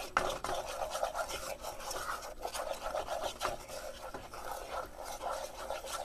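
A utensil stirring and scraping a thick paste of butter, sugar, cocoa and flour around a saucepan in quick, repeated strokes: the roux-like base of chocolate gravy being worked smooth before the milk goes in.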